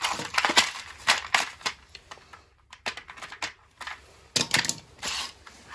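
Small plastic Wago lever connectors and wire nuts rattling and clicking in a plastic compartment organizer as they are picked at and pried out with pliers: irregular clusters of sharp clicks, with a brief lull about halfway.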